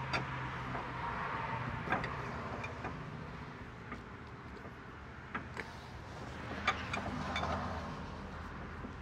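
Pry bar levering a front drive axle's inner CV joint out of the transmission: a few scattered metal clicks and knocks over a low steady hum.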